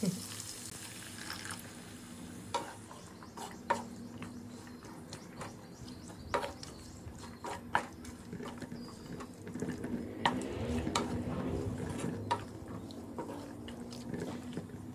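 Spatula stirring wet green peas masala in a nonstick frying pan, scraping through the gravy with a sharp knock of the spatula against the pan every second or two.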